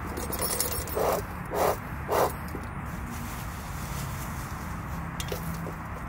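Bee smoker's bellows pumped three times, about half a second apart, each a short puff of air driven into the fuel to keep it burning, after a second of rattling and rustling as the smoker is handled.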